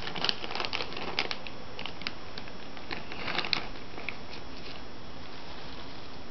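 Cat crunching a dry treat: a run of small, crisp crunches in the first second and a half and another cluster about three and a half seconds in.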